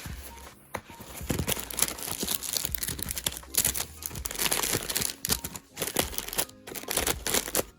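Packaging crinkling and rustling as it is handled by hand, in quick irregular crackles with brief pauses.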